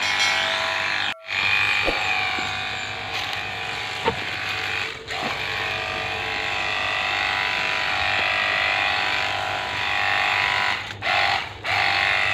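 Small electric pump motor of a battery-powered cordless spray gun running with a steady whine while spraying weed killer, cutting out briefly about a second in, around five seconds in, and twice near the end.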